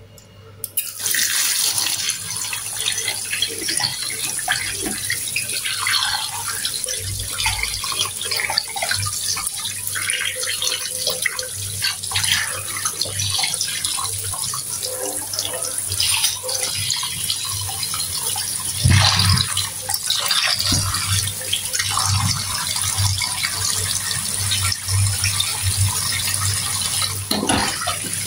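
Tap water running into a stainless-steel sink, splashing over fish and a plastic plate as hands rub and rinse them. The water comes on about a second in.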